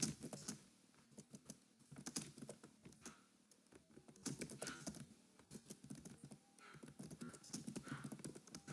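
Faint typing on a computer keyboard: irregular keystroke clicks, pausing briefly twice.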